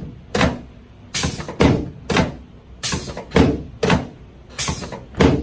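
A run of about nine sharp thumps, roughly two a second, from quick repeated thrusts on the pelvis and treatment table during a chiropractic sacroiliac joint adjustment. The thumps stop near the end.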